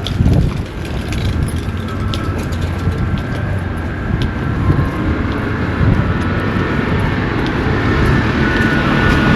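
A motor vehicle running and drawing closer, growing louder toward the end, over a steady low rumble.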